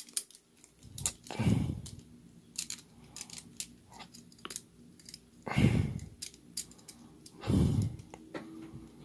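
Plastic Beyblade parts, the Infinite Achilles layer and its Infinite Sword attachment, handled and fitted together: scattered small plastic clicks and scrapes, with three longer, louder rubbing sounds spread through.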